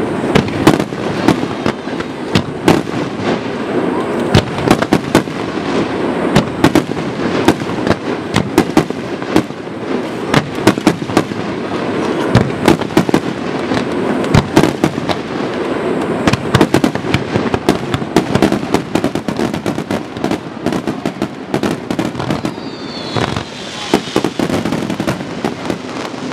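Fireworks barrage: many shells and launches going off in quick, irregular succession, several loud bangs a second over a continuous crackle.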